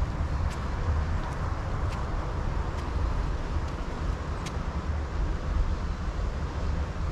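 Outdoor background noise: a steady low rumble with a few faint ticks.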